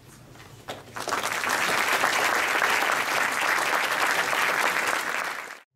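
Audience applauding, starting about a second in and fading out just before the end.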